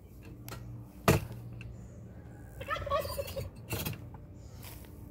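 A sharp knock on a plastic pet-carrier crate about a second in as a metal rod is worked inside it, then a short burst of poultry calls around the middle, with a few lighter knocks and scrapes.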